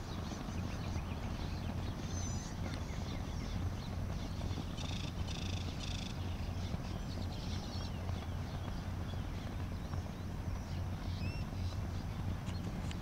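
Outdoor ambience of a steady low rumble with birds chirping now and then, and a short three-part high call about five seconds in.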